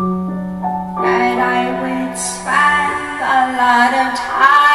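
Live acoustic song: a woman singing over piano accompaniment, the music coming in suddenly with a low held note for about the first three seconds before the voice rises above it.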